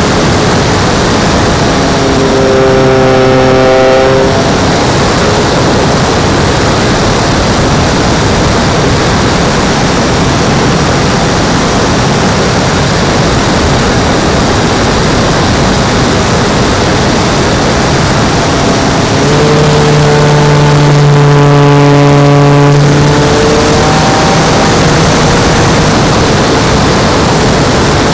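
Onboard sound of an E-flite P-51 Mustang radio-control model in flight: its electric motor and propeller hum under a heavy rush of air on the microphone. The propeller tone swells louder briefly a couple of seconds in, and again for a few seconds near the end.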